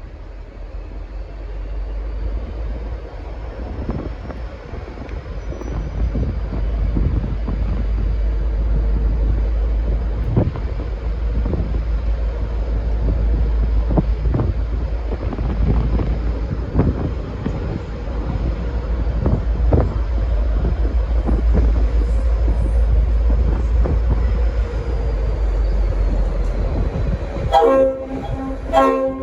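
V/Line N-class diesel locomotive pulling away under power, a heavy low engine rumble with scattered knocks from the train. Near the end the loco's Leslie RS5T horn sounds a few short blasts.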